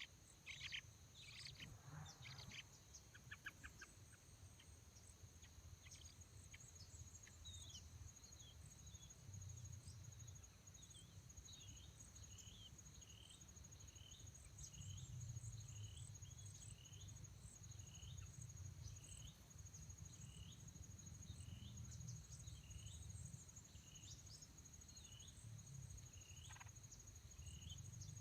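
Faint steady high-pitched insect trill, like a cricket, with a small bird calling over it: quick falling calls in the first few seconds, then a short chirp repeated about once a second through the middle.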